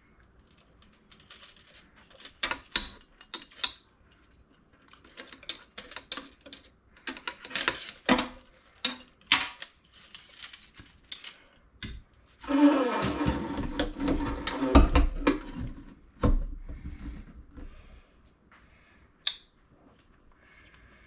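Clicks, taps and clatter of metal and plastic faucet parts being handled and fitted, with a louder stretch of rubbing and bumping about two-thirds of the way through.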